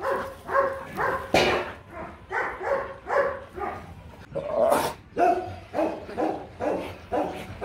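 Rottweiler barking repeatedly, short calls about two a second.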